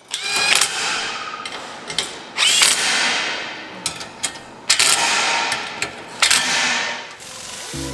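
Cordless drill/driver running in four short bursts as it drives bolts into a steel roof-rack panel. Each burst starts sharply and fades out.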